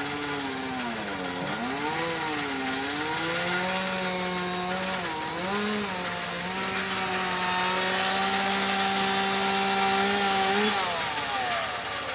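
Gas chainsaw running at high revs in a cut, its pitch dipping and recovering several times as it bogs under load, then holding steady for a few seconds before dropping off about eleven seconds in.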